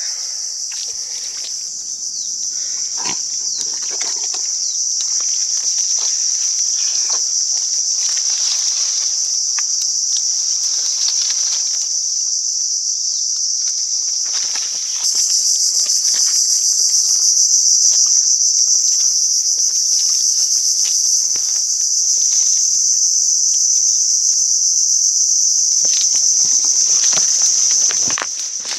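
Dense chorus of insects buzzing in one steady, high-pitched drone, louder from about halfway through and dipping just before the end. Under it, scattered rustling and steps through mud and undergrowth.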